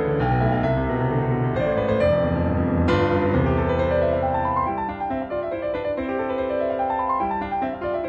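Background piano music, with runs of notes rising and falling in the second half.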